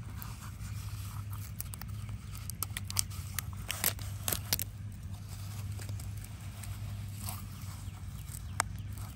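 Crinkling and sharp clicks from a toy surprise package and plastic toys being handled, busiest about three to four and a half seconds in, over a steady low hum.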